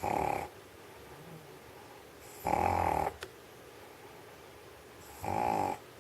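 An old dog asleep, snoring: three loud snores about two and a half seconds apart.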